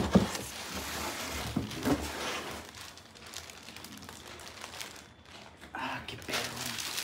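Clear plastic bag crinkling and rustling as a bass combo amp wrapped in it is lifted out of its cardboard box, with two thumps in the first two seconds. It goes quieter for a few seconds, and a short pitched sound comes near the end.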